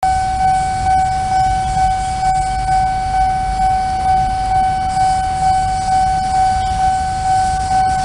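Railway level-crossing warning alarm sounding: a steady high electronic tone that pulses about twice a second without a break.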